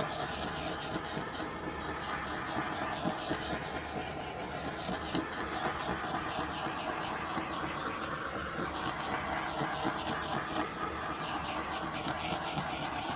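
Handheld butane torch flame hissing steadily as it is swept over wet poured acrylic paint to pop the surface bubbles.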